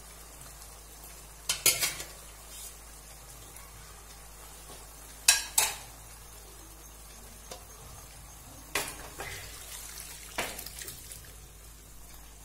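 Utensils clinking against a plate and a non-stick kadai as cooked beef pieces are tipped into frying onion and tomato masala, with a low sizzle underneath. There are a handful of sharp clinks, two close together about five seconds in.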